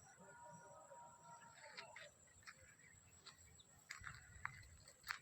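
Near silence with a faint, drawn-out animal call lasting about a second and a half near the start, followed by a few light clicks.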